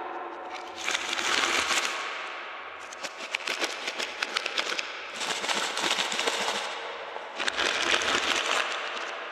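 Crinkly plastic candy packaging being handled and cut open with scissors: dense crackling and snipping that comes in several louder spells of a second or two.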